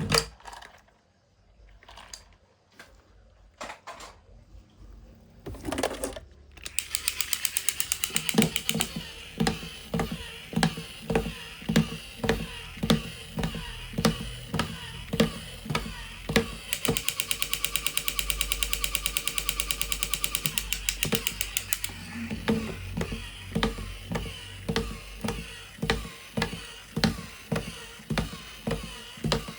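Battery-powered toy vehicle running: a fast, even mechanical rattle with a heavier beat a little under twice a second. It starts about seven seconds in, after a few quiet clicks of handling.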